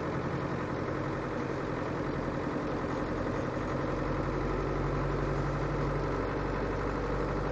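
Land Rover Defender 110's 300Tdi 2.5-litre four-cylinder turbodiesel engine running steadily at low speed, heard from inside the cab as it pulls up a steep road through deep snow.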